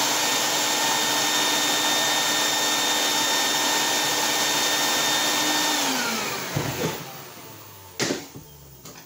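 Shop vacuum running steadily, then switched off about six seconds in, its motor whine sliding down in pitch as it winds down. A single sharp knock comes near the end.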